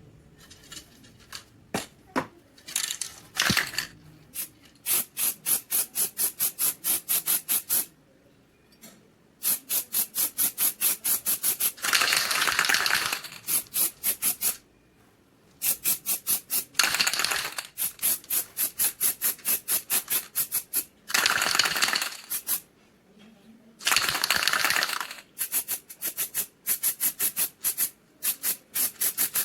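Hand scrubbing strokes on the pistol's metal parts, back and forth at about four strokes a second, in runs broken by short pauses and a few one-second bursts of faster continuous rubbing.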